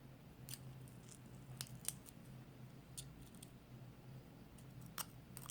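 Faint, scattered clicks and taps of small plastic parts being handled and fitted back into a vape mod's case, over a low steady hum.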